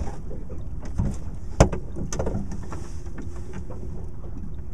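Steady low rumble of wind and water around a small fishing boat, with a sharp knock about one and a half seconds in, a lighter thump just before it, and a few faint clicks: handling knocks on the boat.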